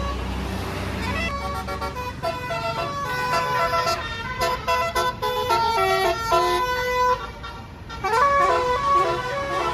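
Tour bus's 'basuri' telolet air horn playing a melody of quick stepped notes, starting about a second in, breaking off briefly near the end and starting again. A low engine rumble is under the first second.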